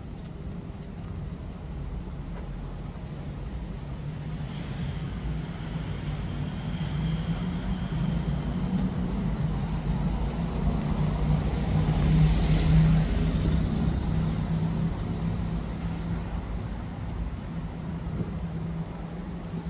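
A car drives slowly along a cobbled lane and passes close by. Its engine and tyres grow louder to a peak about twelve seconds in, then fade away.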